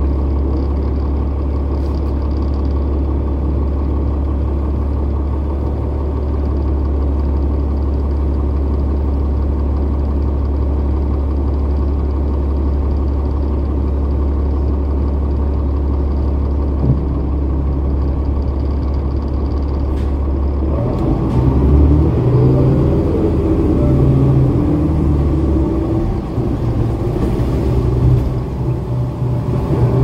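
Cummins ISL9 inline-six diesel of a New Flyer Xcelsior XD40 city bus idling steadily. About 21 seconds in, the bus pulls away and the engine speeds up, its pitch rising and falling through the Allison automatic transmission's gear changes.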